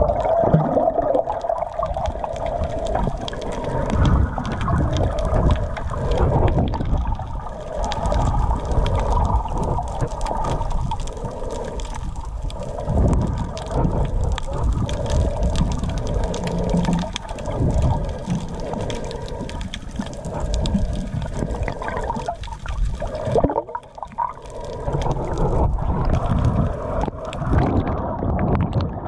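Water sloshing and gurgling against a camera held underwater, heard as a muffled low rumble with a faint steady hum.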